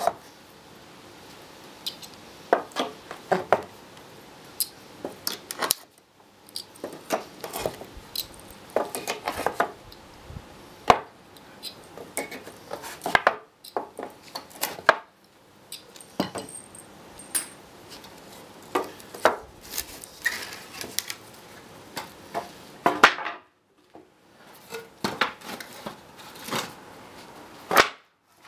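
Claw hammer working short steel nails out of pallet boards: irregular sharp metal-on-wood knocks and clinks, in quick runs broken by short pauses.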